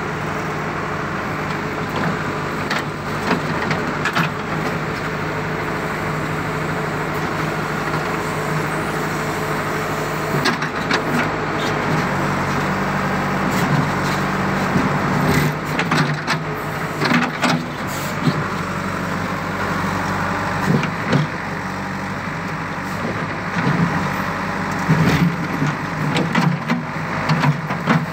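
JCB backhoe loader's diesel engine running steadily under load while its bucket digs a trench in soil, with irregular knocks from the digging scattered through it.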